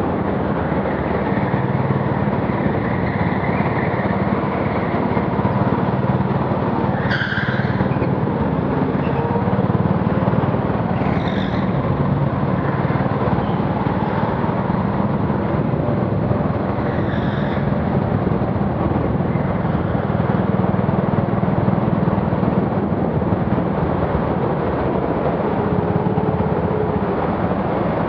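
Go-kart engine running steadily under the driver, heard from a helmet-mounted camera. Three brief, sharp, higher-pitched sounds cut through it at intervals.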